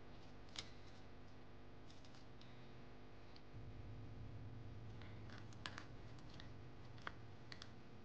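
Folded paper handled by fingers: faint crinkles and a handful of short, sharp clicks as the layers of a paper origami model are pressed and tucked, the loudest tick a little after seven seconds, over a low steady hum.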